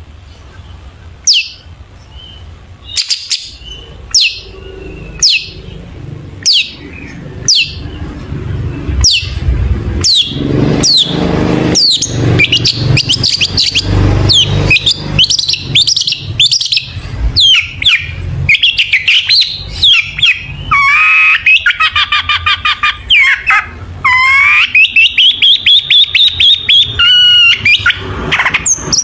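Long-tailed shrike singing: first a string of sharp, downward-sweeping calls about one a second, then a dense, varied song with fast trilled runs of repeated notes. It is a full mimicry song of other birds' phrases, as a singing cendet gives it.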